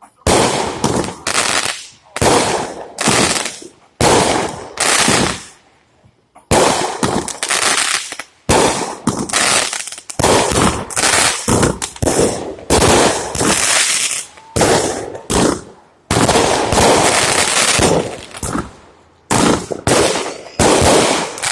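Consumer fireworks going off in rapid volleys: many sharp bangs in quick succession, each with a crackling tail, in bursts separated by short pauses.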